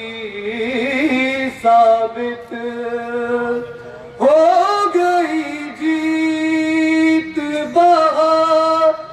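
Solo male voice chanting Urdu devotional verse, unaccompanied, through a microphone. He holds long, drawn-out notes in about four phrases, with short breaths between them.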